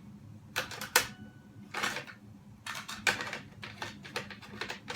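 Plastic cassette tapes and cases clicking and clattering as they are handled: a string of irregular sharp clicks and short rattles.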